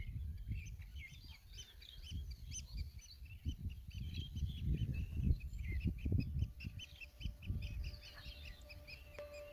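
Birds chirping in a dense run of short high calls, thinning out over the last couple of seconds, with gusty wind rumbling on the microphone.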